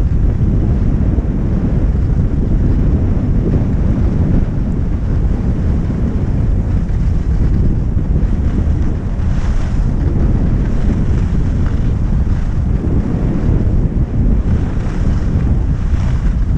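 Wind rumbling loudly on an action camera's microphone while skiing downhill, mixed with the hiss of skis sliding and carving on packed snow, brighter on a couple of turns.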